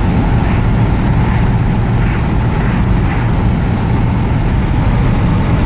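A 1956 Ford Thunderbird's 312 V8 and road noise while it drives at a steady speed, a continuous low rumble heard from inside the car.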